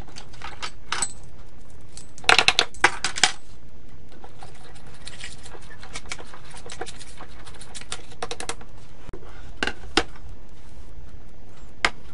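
A small metal utensil clinking and scraping against a stainless steel bowl while stirring dry starch and five-spice powder together. A quick run of taps comes about two seconds in, then scattered lighter clicks and a few single clinks.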